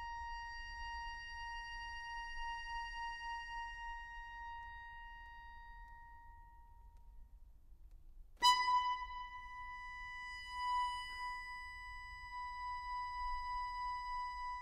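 Accordion holding a single high note with a slight wavering, fading away over about seven seconds; after a short pause a new, slightly higher note starts suddenly and loudly and is held to the end.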